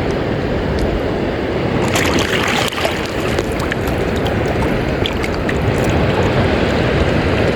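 Steady rushing noise of wind and sea water on a boat, with a few faint clicks.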